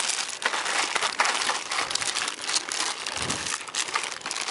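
Rummaging through crinkly plastic, a continuous rustle with sharp crackles, while searching for a hair product. A dull low knock comes about three seconds in.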